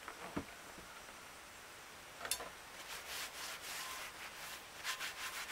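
A paper towel rubbing olive oil over the outside of a cast iron skillet to season it: a run of scratchy wiping strokes starting about halfway in, after a soft thump near the start and a sharp knock.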